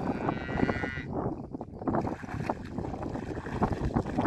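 A hooked carp thrashing and splashing at the water's surface as it is played in to the bank. A brief high-pitched whine sounds in the first second.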